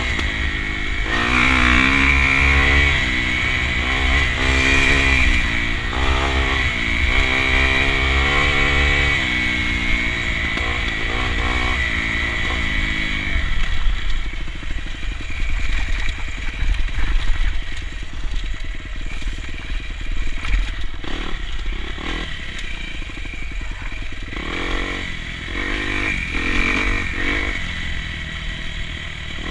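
Small off-road vehicle engine running under load, its pitch rising and falling over and over as it revs for the first half, then running rougher and lower, with a clattering texture.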